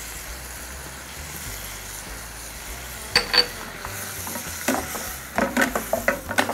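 Sliced onions, carrots, tomatoes and peppers sizzling in a frying pan with a steady hiss. About three seconds in, a metal spoon clinks once against the pan with a brief ring. In the last couple of seconds it scrapes and clicks repeatedly as the vegetables are stirred.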